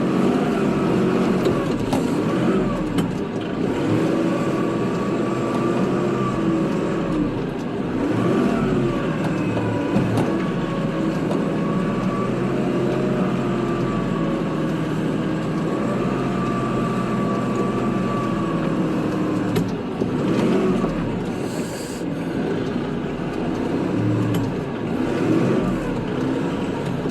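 Kubota tractor's diesel engine running steadily during snow plowing, its pitch rising and falling repeatedly as it works.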